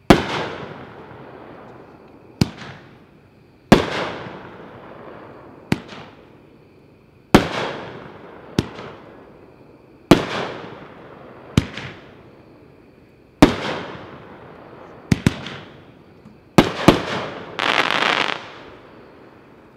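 Epic Fireworks "Arcade Hero" 7-shot cake firing: alternating launch thumps and aerial shell breaks, each break fading out in a long echoing tail, about one report every one and a half to two seconds. It ends with a longer, denser break near the end.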